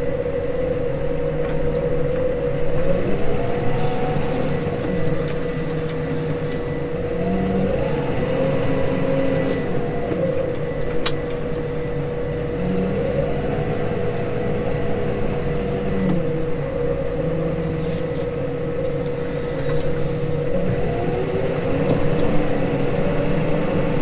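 Case Maxxum 150 tractor engine running steadily under load while pulling discs, heard from inside the cab, with a constant whine over the engine note. Its pitch swells and dips several times.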